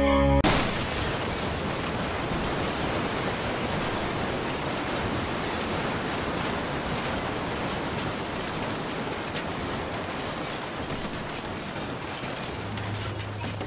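A steady, even hiss begins abruptly as music cuts off just after the start and fades slightly toward the end; a low hum joins it about a second before the end.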